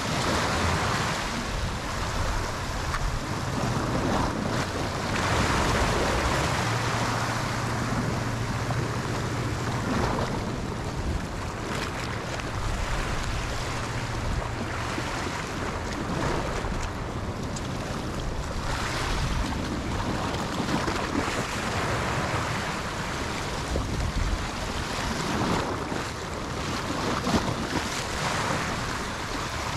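Sea waves washing, with wind buffeting the microphone; the noise swells and eases without a break.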